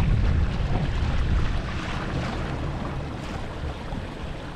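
Wind buffeting the microphone and water rushing along the hull of a kayak moving at speed under an electric trolling motor. The rumble eases off a little after about a second and a half.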